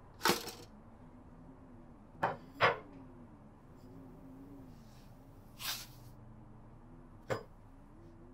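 Five short knocks and clatters of household objects being handled, among them a ceramic plate set down on a wooden table. A faint low wavering tone sits underneath.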